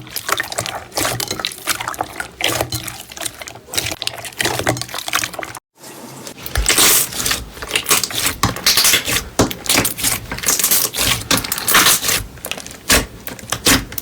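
Slime being squeezed and pressed by hand, making dense wet squelching clicks and pops. There is a brief drop to silence a little over five seconds in, after which the pops are louder and crisper.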